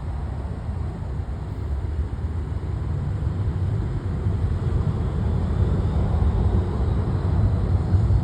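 Jet airliner engines, a steady low rumble that slowly grows louder.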